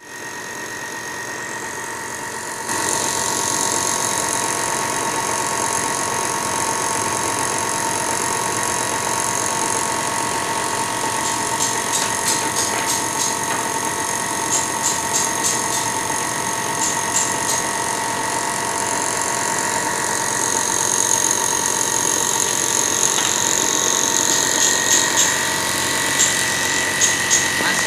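Compressed-air spray gun spraying clear lacquer onto pallet-wood slats: a steady hiss with a constant whine from the air supply, getting louder about three seconds in, with quick stuttering spray bursts in places.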